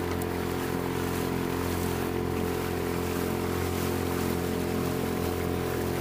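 Small Honda 2.3 four-stroke outboard motor running at a steady speed as the boat moves under way, an even engine hum that does not change.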